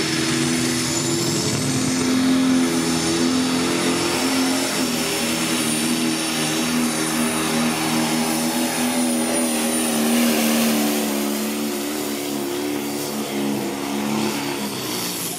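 Pulling tractor's engine running hard under load down the track, a loud steady drone that eases off a little near the end.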